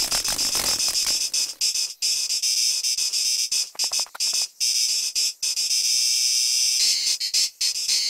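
Cicadas singing together in a shrill, steady buzz, broken by several short gaps. A lower, rougher sound sits under the buzz during the first second.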